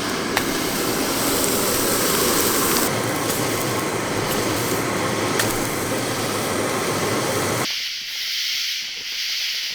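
Jetboil canister-stove burner running with a steady rushing noise under a pan of burgers. About eight seconds in it cuts to a higher, thinner sizzle of the burgers frying.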